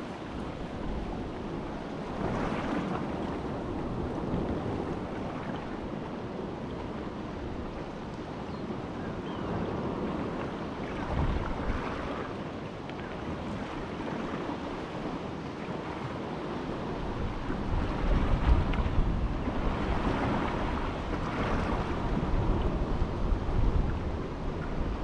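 Wind blowing across the microphone over the wash of sea waves, swelling and easing every few seconds. The wind buffeting grows stronger in the last third.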